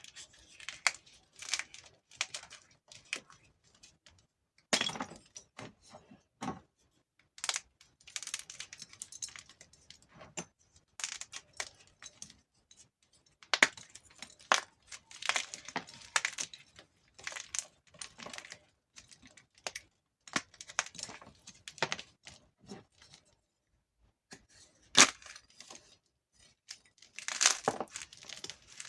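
Gym chalk being crushed between the fingers: crisp crackling and crunching in irregular bursts, with short pauses between squeezes.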